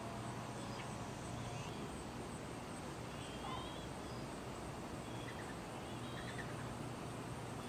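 Outdoor background with a steady low hum and faint, brief chirps from small birds a few times.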